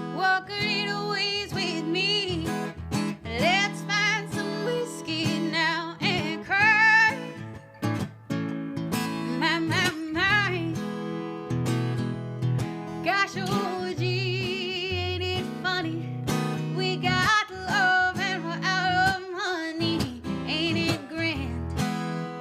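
A woman singing a country song while strumming an acoustic guitar.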